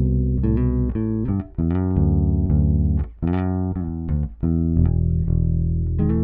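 Fender Precision Bass playing a groove: held low notes broken by runs of quick short notes, with brief stops about a second and a half, three and four seconds in.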